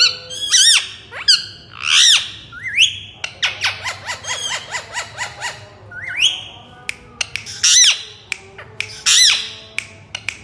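Indian ringneck parrot (rose-ringed parakeet) giving loud, harsh squawks, each an arching screech. In the middle comes a quick run of short chattering notes.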